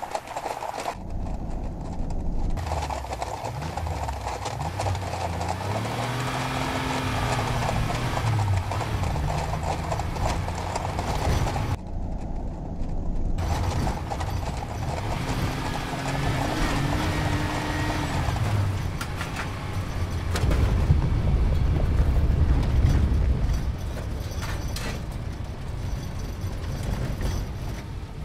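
Many hooves galloping and clattering on pavement, a running herd of deer. A car engine revs up and down over it in places, and there is a heavier low rumble about twenty seconds in.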